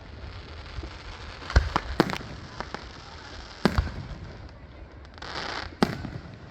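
Aerial fireworks going off: four sharp bangs, each trailing into an echo, among a few fainter pops. A brief hiss comes shortly before the last bang.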